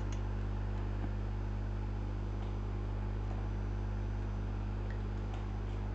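A steady low electrical or mechanical hum made of several even low tones, with a few faint clicks.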